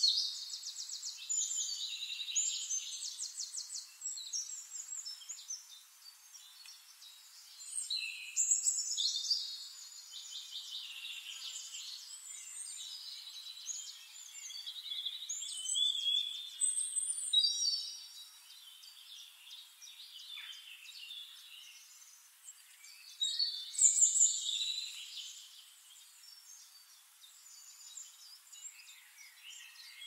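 Several small songbirds singing high, fast trills and chirps in overlapping bouts. The loudest bursts come right at the start, about eight seconds in, around seventeen seconds and around twenty-four seconds, with quieter chirping and a faint hiss between them.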